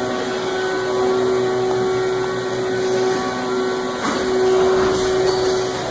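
Haas EC-400 horizontal machining center running with a steady motor whine. About four seconds in the whine breaks briefly under a short swishing noise, then carries on.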